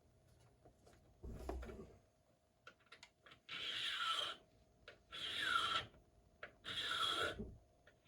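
A hand file rasping across a key blank in three slow, even strokes, cutting down the impression mark at the third pin position while impressioning a key. A single handling knock comes about a second and a half in.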